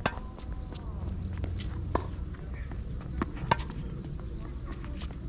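Tennis rally: sharp pops of the ball coming off racket strings and bouncing on the court, the loudest near the start, about two seconds in and about three and a half seconds in.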